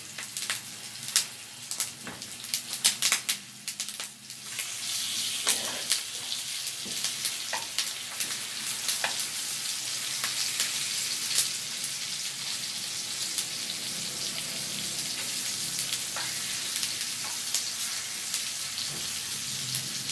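Strips of pork belly sizzling as they fry in butter in a non-stick pan, with a utensil clicking and scraping against the pan as they are stirred and turned. The sizzle swells to a steady hiss about four and a half seconds in.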